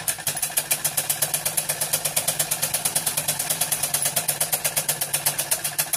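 Usha sewing machine stitching through cloth, running with a rapid, even mechanical clatter. It runs noisier than it should, from thread jammed around the shuttle under the needle plate.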